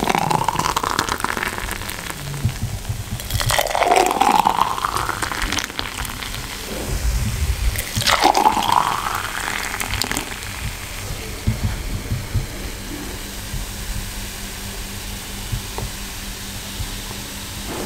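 Blended grape juice poured from a blender jar into tall glasses over ice. There are three long pours, each rising in pitch as a glass fills, followed by quieter topping up.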